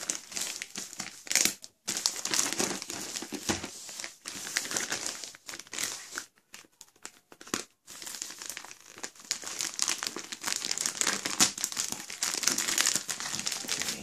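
Taped plastic courier mailer bag crinkling and rustling as hands turn it over and work at it with a multitool to open it, with a brief lull about halfway through.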